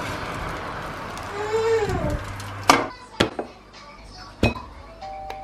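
Three sharp clinks and knocks of a ceramic plate and food being handled on a kitchen worktop, the first the loudest. Before them comes a short voice-like sound that slides up and back down. Background music with held tones comes in near the end.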